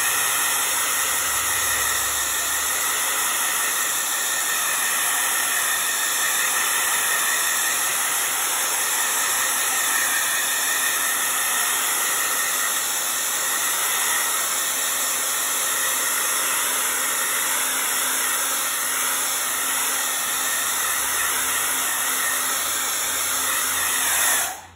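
Handheld hair dryer running steadily, a strong high hiss of rushing air, then switched off and stopping abruptly near the end.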